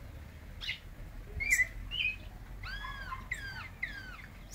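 Caged zorzal blanco thrush singing a short phrase: a few sharp notes first, then a run of arched and down-slurred whistles in the second half.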